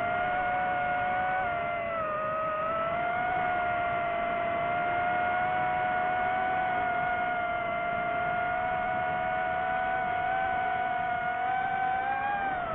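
DJI FPV drone's motors and propellers whining at a steady, high pitch. The pitch dips briefly about two seconds in and falls near the end.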